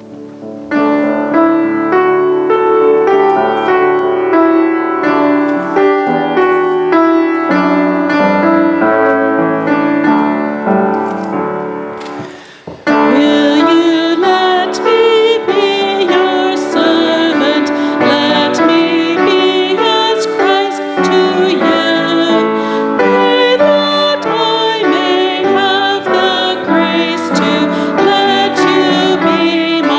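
Piano plays a hymn introduction. After a brief pause, singing of the hymn begins about 13 seconds in, with piano accompaniment.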